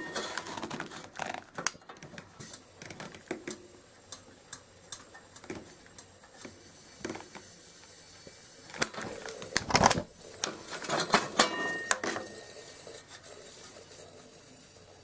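Scattered metal clicks and knocks from handling a Coleman Model 220 lantern's parts. The clicks come in a denser cluster about two thirds of the way through, then fade to a faint background.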